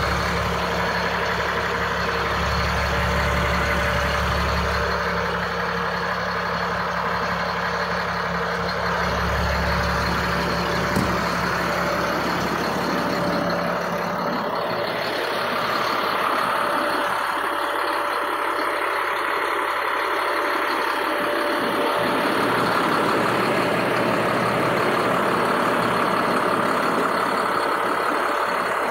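A Cat 3126 diesel engine in a 2004 Ford F650 service truck idling steadily. The deep low rumble is strong at first and thins out about halfway through.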